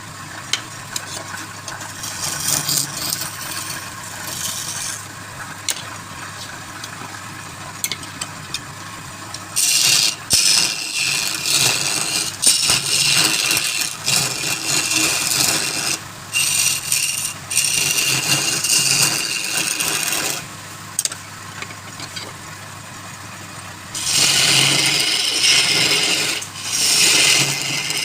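Wood lathe running with a steady hum while a tool scrapes and cuts the spinning wood in bursts, loudest and hissiest from about a third of the way in and again near the end.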